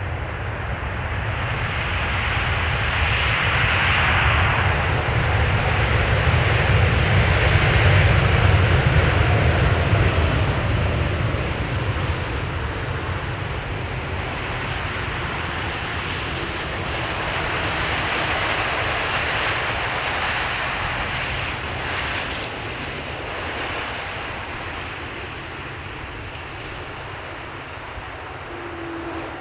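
Jet airliner's engines passing close by: a rumble that swells to a peak about eight seconds in, with a whine that falls in pitch as the aircraft goes past, then fades away with a smaller swell partway through.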